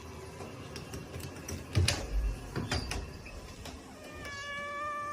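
A few knocks, then a domestic cat's single long, steady meow starting near the end.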